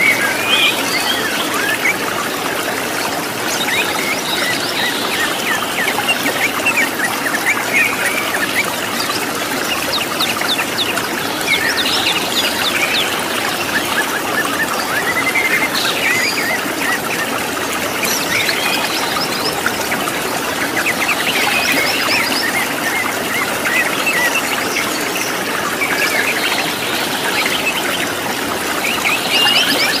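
Steady rush of a waterfall, with several wild birds chirping and trilling over it, some in quick rattling trills.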